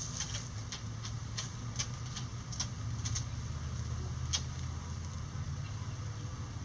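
Chickens pecking and scratching in dry leaf litter: irregular sharp ticks and crackles, most of them in the first few seconds, over a steady low rumble.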